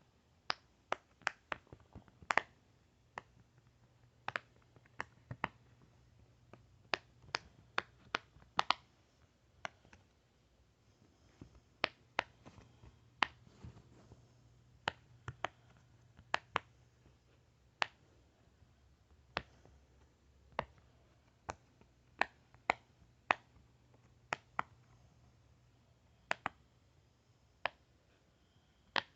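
A series of sharp single pops at irregular intervals, about one or two a second, over a faint steady low hum.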